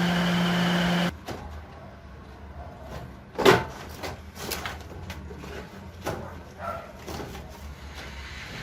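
Electric radiator cooling fan motor of a 2003 Neon running with a steady hum while powered directly by jumper wires, cutting off abruptly about a second in. Then scattered light knocks and clicks, with one louder knock about three and a half seconds in.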